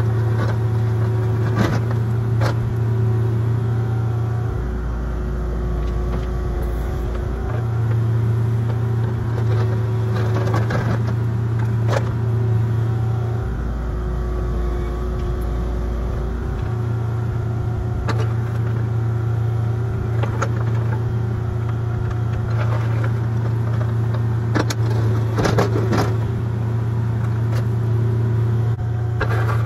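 Mini excavator's engine running steadily with an 18-inch digging bucket, its pitch dropping lower twice for a few seconds, with scattered sharp knocks.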